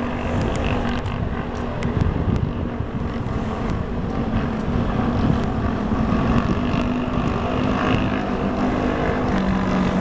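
Steady low rumble with a faint engine hum, with wind buffeting the microphone.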